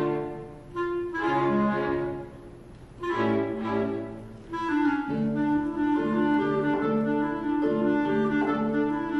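Clarinet and string quartet playing a contemporary chamber piece: short chords broken by two brief lulls, then from about five seconds in a steady, repeated rhythmic figure.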